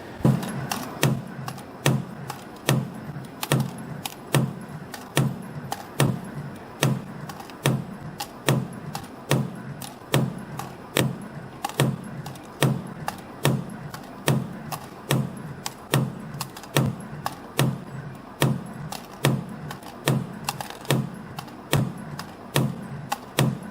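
CNC flat-wire ring (wave spring) forming machine running production, coiling and cutting flat-wire rings at about 80 a minute: a steady, even mechanical clatter with a sharp strike a little more than once a second. It starts abruptly.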